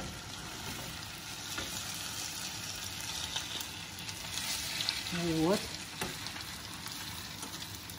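Raw potato sticks sizzling steadily in a frying pan of hot butter that is just starting to brown, as they are tipped into the pan.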